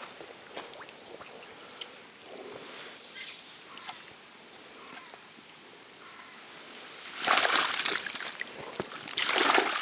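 Water splashing around a mesh keepnet full of live fish in shallow river water, in two loud bursts beginning about seven seconds in. Before that there is only faint lapping and a few small knocks.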